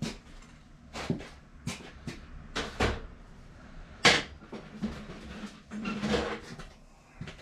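Irregular metal clunks and knocks, about seven or eight in all, the loudest about four seconds in, from handling at a bottle-jack hydraulic shop press.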